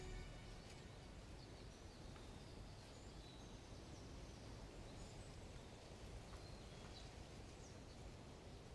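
Near silence: faint outdoor ambience with a few faint, scattered bird chirps.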